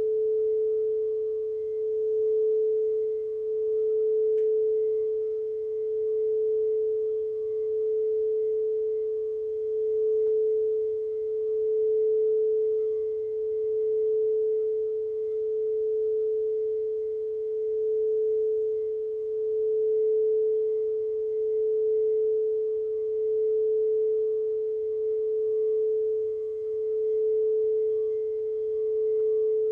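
Singing bowl sustaining one steady, pure note, its volume gently swelling and fading about every two seconds, with faint higher overtones.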